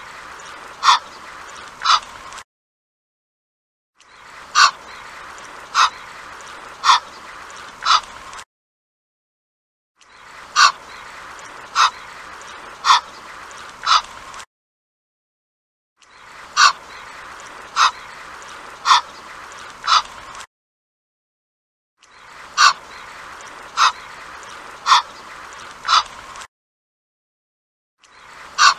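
Egyptian goose calling: short, loud calls about a second apart, four to a bout, with bouts repeating after brief pauses.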